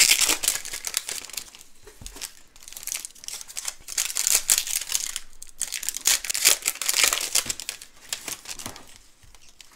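Trading card pack wrappers being torn open and crinkled by hand, in several bouts of crackling with quieter gaps between.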